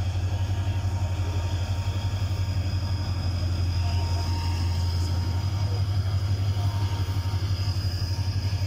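Class 34 diesel-electric locomotive hauling a passenger train past, its engine giving a steady low drone with a fast even throb, a faint thin high whine above it.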